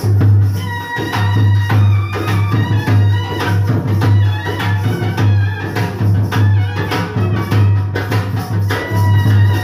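Song music with a steady beat and a melody line over a heavy, continuous bass.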